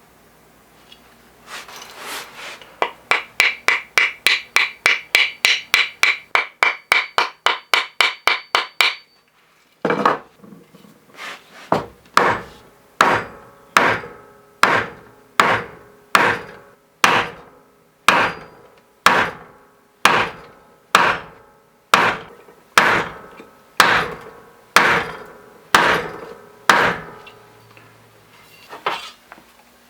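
Hammer blows on the hatchet. First comes a fast run of light strikes, about three or four a second, each with a high metallic ring. After a short pause come heavier, slower blows, about one a second, with a deeper ring.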